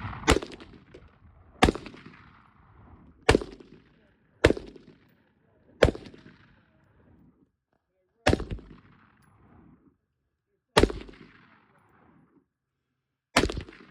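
Eight gunshots fired one at a time, about one to two and a half seconds apart, each a sharp crack with a short echoing tail.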